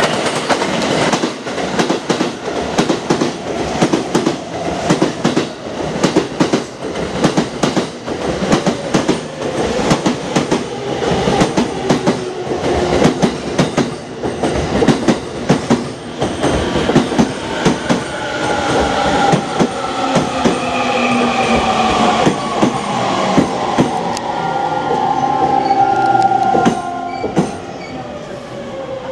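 E233-3000 series electric train arriving: its wheels clatter loudly and rapidly over the rail joints, the clacks spacing out as it slows. Through the second half a whine falls steadily in pitch as the train brakes to a stop.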